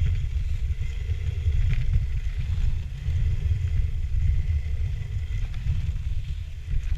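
Steady wind rumble on the microphone of a camera riding a moving dog sled, with a faint hiss from the sled gliding over packed snow.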